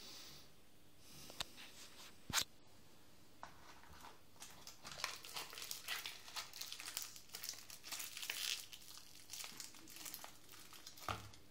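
An empty Drina Gold cigarette pack being crumpled by hand: a dense, irregular crinkling of paper and card lasting several seconds. Two sharp clicks come before it, the second the loudest sound, and there is a dull knock near the end.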